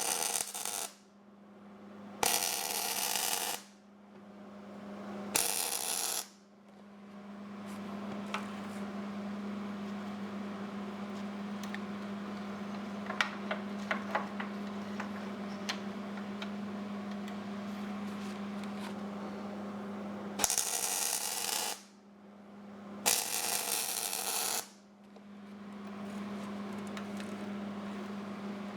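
Short bursts of arc welding, tack welds of about a second each, five times over a steady electrical hum.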